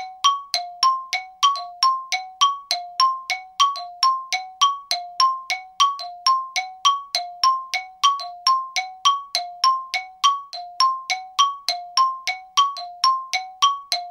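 Background music: a bright chime or mallet-like tone struck in a steady, even rhythm, alternating between a lower and a higher note about three times a second.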